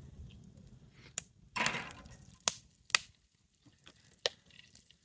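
A handful of sharp, irregular clicks and knocks, with a brief scraping rustle about one and a half seconds in.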